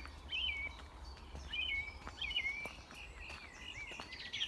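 A songbird singing a run of quick warbling phrases over a faint low rumble, with a few light ticks.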